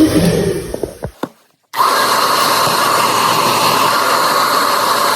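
Hair dryer running with a steady whine over its blowing hiss. The sound fades out about a second in, drops to near silence briefly, then comes back steady.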